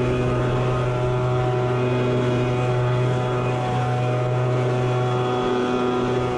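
Handheld leaf blower running at a steady speed, a constant pitch with no let-up, blowing loose moss and pine needles off a shingle roof.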